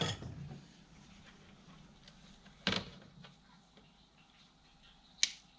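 Two sharp snips about two and a half seconds apart, the first the louder: small wire being trimmed with cutters.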